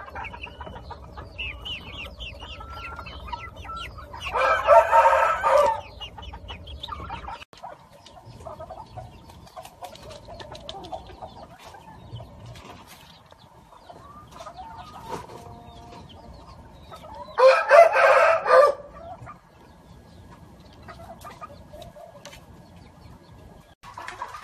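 Roosters crowing twice, each crow about two seconds long, about 4 seconds in and again near 17 seconds. Between the crows, chickens cluck and chirp quietly.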